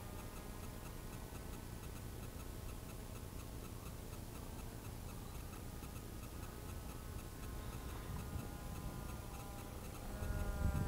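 Swift 2 RC flying wing in flight: a faint pitched whine fades as the model flies away, then grows again and shifts in pitch near the end as it passes close. Wind rumbles on the microphone near the end.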